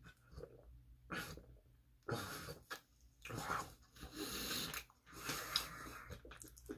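A person drinking cola from a plastic soda bottle, then breathing out in a string of short puffs through pursed lips.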